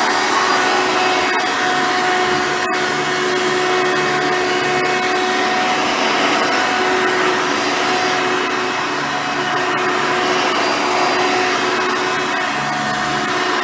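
Hoover Soft & Light Supreme upright vacuum with a 7-amp motor running steadily while cleaning the floor, with a constant motor whine and one short click a few seconds in.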